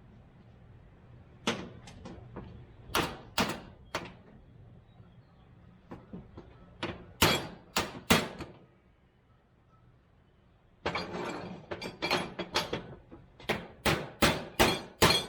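Hammer striking metal, driving at a part of a Ford F350's shift tube linkage that will not go through. The blows come singly and spaced out at first, then in a faster run of about a dozen near the end, each with a short metallic ring.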